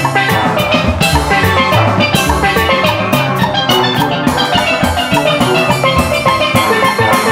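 Steel band playing swing jazz, rapid struck steelpan notes over a drum kit beat.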